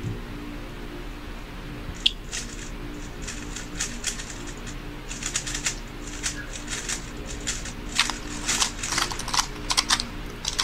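3x3 speedcube being turned fast in the hands: a rapid run of plastic clicks and clacks, sparse at first and growing dense in the second half as the timed solve gets under way. A faint steady hum runs underneath.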